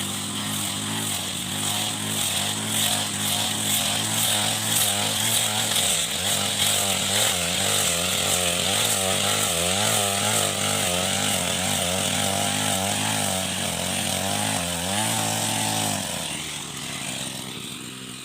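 Small petrol engine of a grass-cutting machine running, its pitch wavering up and down as it works through grass. It stops about 16 seconds in.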